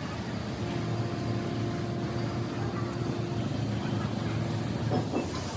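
A motor or engine running steadily, a low hum with a faint held tone from about half a second in until near the end.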